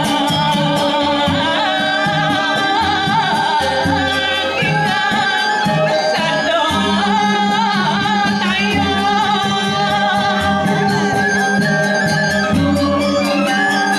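Balinese gamelan music for the Telek dance: steady ringing metallophone tones under fast, even cymbal ticks, with a wavering high melody line over them.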